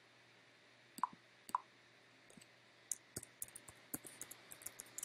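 Faint computer keyboard typing: a quick run of light key clicks from about three seconds in, as a password is retyped. Two short separate clicks come about a second in.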